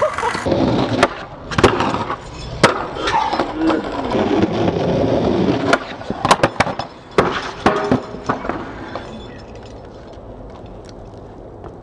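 Skateboard wheels rolling on rough pavement, then a run of sharp clacks about six to eight seconds in as the board is popped and slaps down on the concrete; it goes quieter after about nine seconds.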